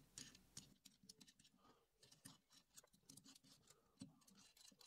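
Faint scattered clicks and light taps of small metal parts being handled: bolts being threaded by hand into a metal router-mount block, with a hex key taken up near the end.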